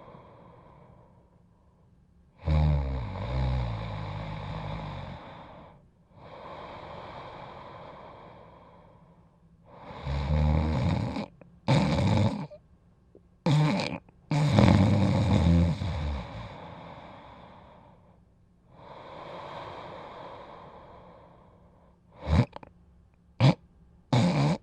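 A person snoring: loud snores on the in-breath, with a low vibrating pitch, alternating with softer breathy out-breaths, then a few short quick snorts near the end.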